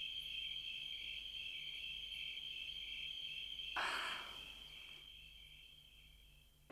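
Crickets chirping steadily, with a short soft rustle about four seconds in; the sound fades out to silence shortly after.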